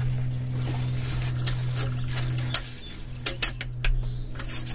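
Oil dipstick of a Yamaha 1.8L four-stroke jet ski engine being worked in and out of its tube to check the oil level: a string of short sharp clicks and clinks over a steady low hum.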